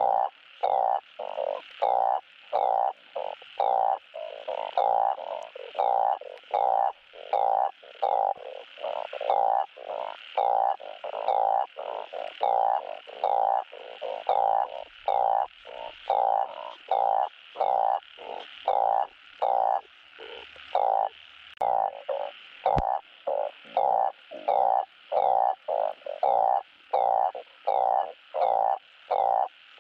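Blunt-headed burrowing frogs (Glyphoglossus molossus) giving their mating call: short croaks repeated about one and a half times a second, the males calling for mates.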